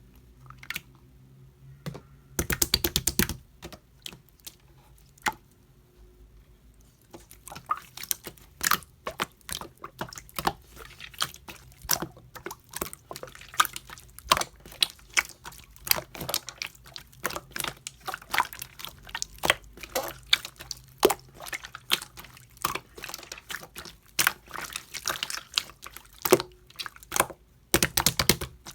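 Slime being squeezed and pressed by hand, giving irregular sharp clicks and pops of trapped air. A quick rattling run of pops comes about two and a half seconds in and again near the end.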